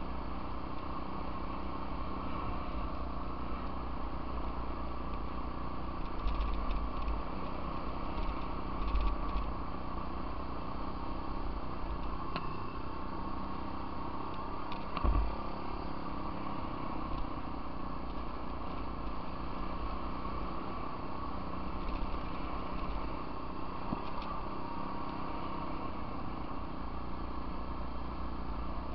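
Off-road vehicle engine running steadily while riding a dirt trail, with a few louder knocks about six, nine and fifteen seconds in.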